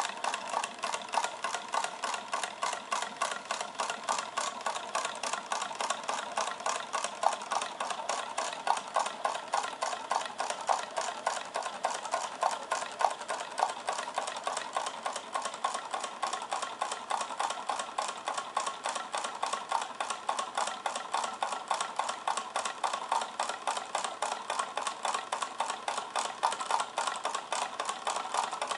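Homemade Pringles-can Stirling engine running, its wire crank and linkages clicking and rattling in a fast, even rhythm with each turn of the flywheel.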